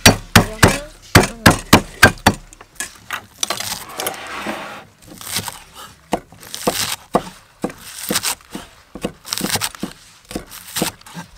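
Cleaver chopping green onions on a thick round wooden chopping block: a run of sharp chops, about four a second at first, then more irregular.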